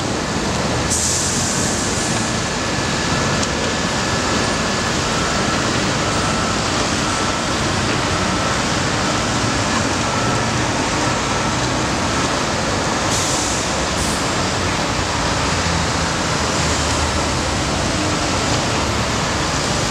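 Steady street traffic noise from vehicles and dump trucks queued on the street below, a continuous rumble and hiss. A brighter hiss rises briefly twice, about a second in and again near the thirteen-second mark.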